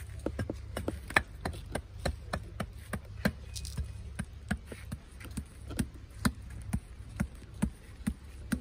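Hand mallet tapping Stolperstein memorial stones, small brass-plated blocks, level into the paving, with rapid sharp knocks at about three a second.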